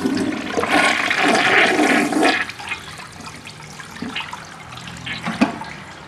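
A 1963 Universal-Rundle Briggs toilet flushing. A loud rush of water lasts about two seconds, then eases to a quieter swirling and trickling as the bowl fills up instead of draining, because the toilet is still clogged.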